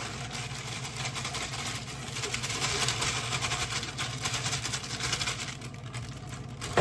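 Electric kitchen mixer running with a steady motor hum.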